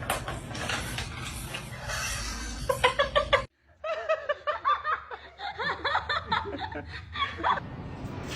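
People laughing in short repeated bursts, with a sudden cut about three and a half seconds in and a second stretch of laughter after it.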